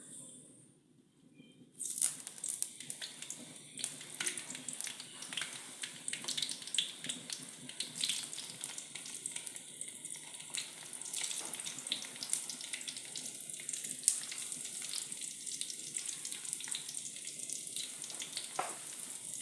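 Tempeh frying in hot oil: sizzling with many sharp crackles and pops. It starts suddenly about two seconds in, as the pieces go into the oil.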